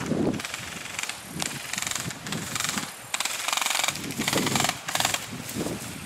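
Footsteps and rustling of grass and brush as someone pushes quickly through undergrowth, with irregular thumps and stretches of crackling in the middle.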